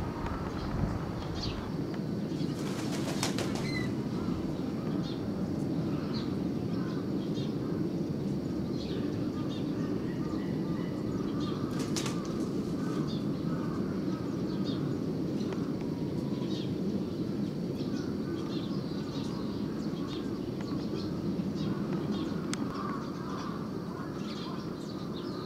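Small birds chirping in short, high notes scattered throughout, over a steady low rushing background noise, with a couple of sharp clicks.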